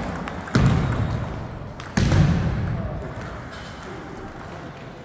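Two loud knocks about a second and a half apart, each echoing and dying away over about a second in a large hall, over faint background chatter.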